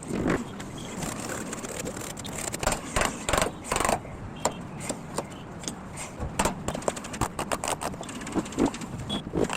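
Irregular knocks, clicks and short scrapes from hand work on wood.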